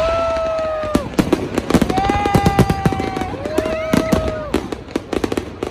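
Fireworks going off: rapid crackling and popping reports throughout. Three long steady whistling tones, each about a second long, sound over the crackle and drop off at their ends.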